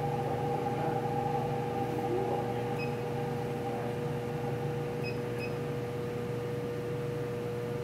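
Steady machinery hum with a constant mid-pitched tone, with a few faint short beeps about three and five seconds in.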